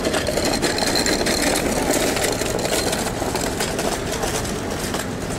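Busy street ambience: a motor vehicle's engine running, with background voices of passers-by.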